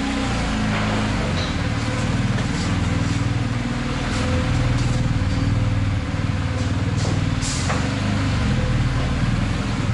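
BMW R 1250 GS's 1254 cc boxer twin running at low revs while the motorcycle is ridden at walking pace, the engine note rising and easing a little.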